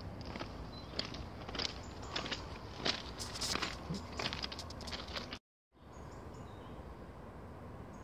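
Footsteps and rustling through undergrowth, a run of irregular crackles and brushes against the phone, which cuts out suddenly about five and a half seconds in. After that, a steady outdoor background with a few faint high chirps.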